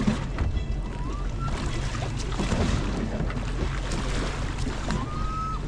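Boat at sea: a steady low engine hum with wind and water lapping. Two brief rising whistle-like tones sound, one about a second in and one near the end.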